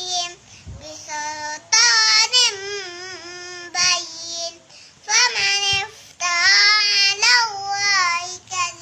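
A two-year-old child chanting Qur'an recitation in a high, melodious voice, in sung phrases of a second or two with short breaths between them.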